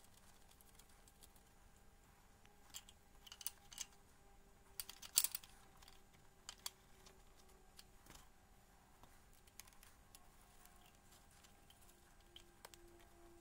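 A few scattered sharp clicks and small metallic taps, bunched about three to five seconds in, from a spanner and hands working on the coolant temperature sensor and its plastic wiring connectors; otherwise quiet with a faint steady hum.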